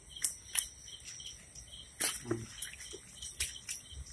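A few sharp splashes and slaps as a snakehead fish thrashes in a shallow puddle on wet ground, over steady high chirping of night insects.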